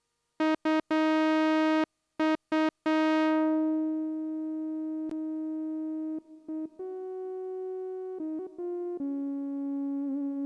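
Behringer Odyssey analog synthesizer playing a single-note line with a bright, buzzy tone: several short clipped notes, then a long held note whose bright upper tones fade away, then a slow run of notes stepping to new pitches, with a slight vibrato near the end.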